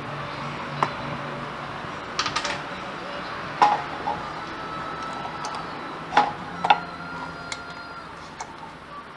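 Light clicks and knocks of hand tools, a grease tin and a scooter's aluminium transmission cover being handled, about a dozen sharp taps scattered over a steady background hum.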